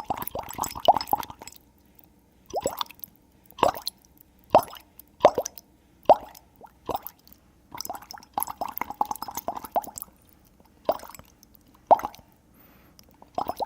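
Bubble-popping sound effect: a string of short watery pops, each a quick falling "bloop". They come in fast clusters near the start and again about eight to ten seconds in, with single pops about a second apart in between.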